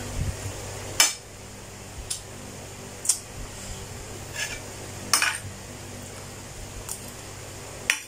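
Metal spoon clinking and scraping against a plate while scooping rice: about seven sharp clinks spread over the eight seconds, the loudest about a second in.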